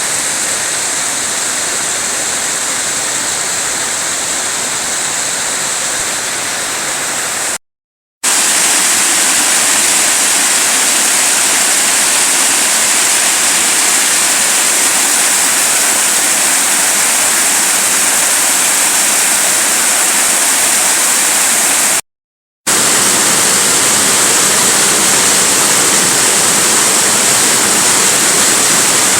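Mountain waterfall pouring, a steady rushing hiss of falling water. It breaks off completely twice, about eight seconds in and again a little after twenty seconds, and sounds slightly brighter after the first break.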